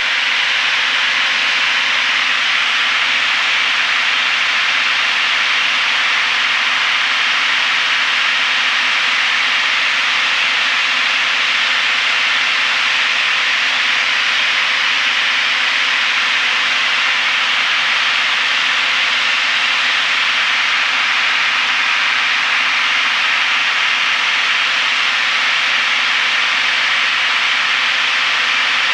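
Steady cabin noise of a single-engine Piper PA-32R in flight: engine and airflow merge into a constant hiss with a faint low hum under it, unchanging throughout.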